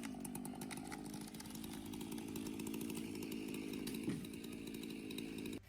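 Two-stroke chainsaw engine running at a steady speed, its note holding level, then cutting off abruptly near the end.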